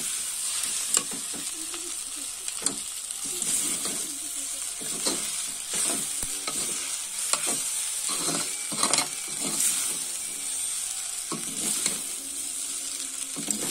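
Vegetable noodles sizzling in a hot iron kadai as they are tossed and stirred, with a metal spatula repeatedly scraping and knocking against the pan.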